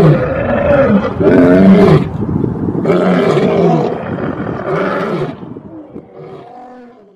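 Tiger roaring: about four long, rough roars in a row, then fainter growls fading out near the end.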